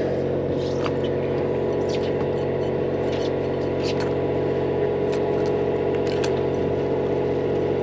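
Boat engine running steadily, with a few faint clicks and splashes over it.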